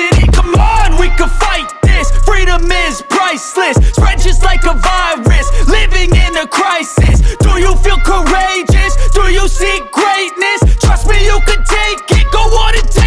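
Hip hop track playing, with heavy booming bass notes under a vocal line.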